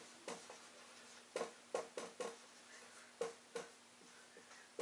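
Dry-erase marker writing on a whiteboard: about seven short, quiet strokes, a few close together, as letters are written.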